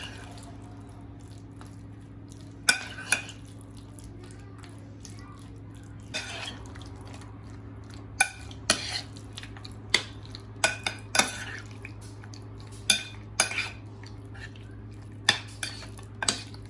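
A utensil clinking and scraping against a bowl while chicken is mixed in its spice marinade: a dozen or so sharp, irregular knocks, over a steady low hum.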